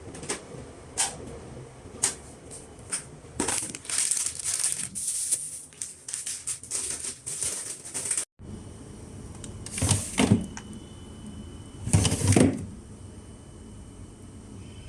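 Things being handled in and around a refrigerator during cleaning: a string of light clicks and knocks, then several seconds of rubbing and rustling. After a sudden break about eight seconds in come two louder clattering knocks, with a faint steady high tone in the background.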